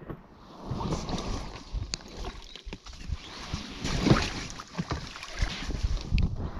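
Irregular knocks, scrapes and rustling of a canoe being carried up a steep portage trail.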